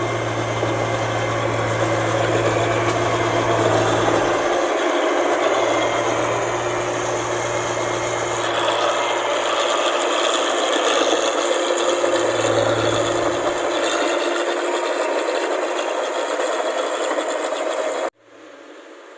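Rice combine harvester running, a dense steady mechanical rattle and clatter over a low engine hum; the sound cuts off suddenly near the end.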